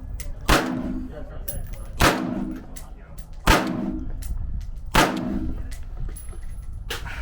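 Four gunshots at a shooting range, evenly spaced about a second and a half apart, each with a short echoing tail, with fainter shots and pops between them.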